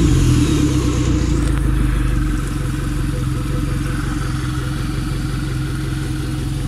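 Suzuki 150 hp four-stroke outboard motor running just after a restart, at a slightly higher idle that settles to a steady idle a little over two seconds in.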